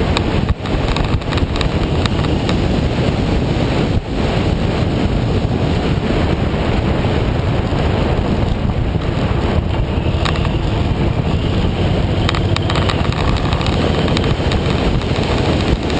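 Loud, steady wind rush on the microphone of a camera on a moving motorcycle, with the bike's engine and road noise mixed in underneath. The noise dips briefly twice, about half a second and four seconds in.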